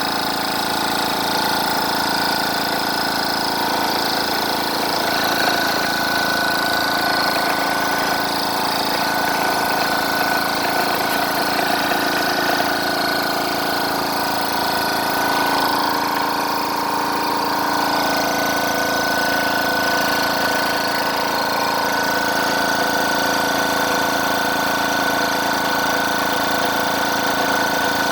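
Twin-cylinder, water-cooled 4500 psi PCP high-pressure air compressor running steadily with an even mechanical drone, fairly quiet for such a compressor.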